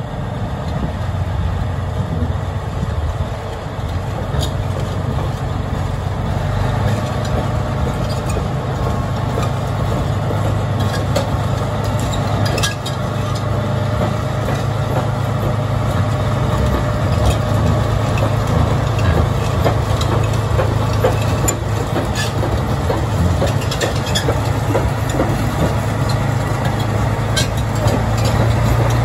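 Caterpillar D9L crawler dozer's V12 diesel (CAT 3412) running steadily as the dozer drives forward on its steel tracks, with scattered sharp clicks and clanks from the track links.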